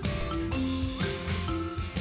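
Background music: an upbeat tune on mallet percussion such as marimba or xylophone, over a bass line.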